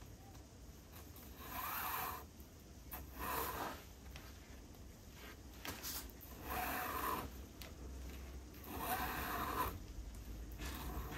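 Four short scraping strokes of hand work on leather, each under a second, with pauses of one to three seconds between.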